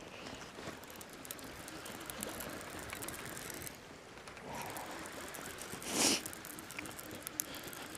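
Fishing reel being wound steadily, retrieving the line, with a short burst of noise about six seconds in.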